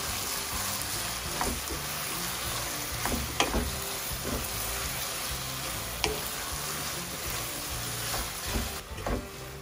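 Lamb mince with diced potatoes and peas sizzling in a pot while a wooden spatula stirs it, with a few sharp clicks of the spatula against the pan. The sizzle softens near the end.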